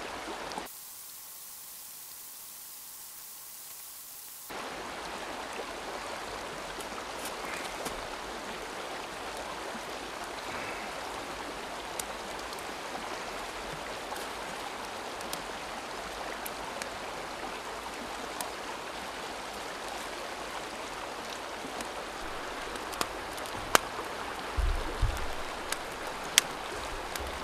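Steady rush of a river flowing past, with scattered sharp crackles from a smoky campfire of damp kindling and wood. A few dull thumps come near the end.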